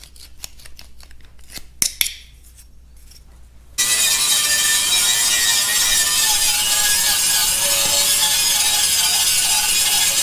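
Light scraping and clicking of a metal pick working old grease out of a bolt hole in a steel bracket; about four seconds in, this gives way abruptly to the loud, steady whir of an angle grinder with a wire brush scouring rust from a perforated steel tractor foot plate.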